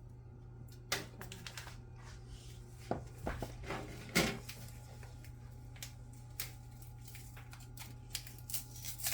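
Paper packets of instant yeast being torn and shaken out: scattered crinkles, rustles and sharp little taps, loudest about four seconds in, over a steady low hum.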